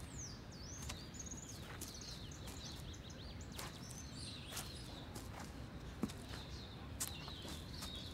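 Faint outdoor ambience of small birds chirping and twittering, with a low steady background noise and a few short clicks.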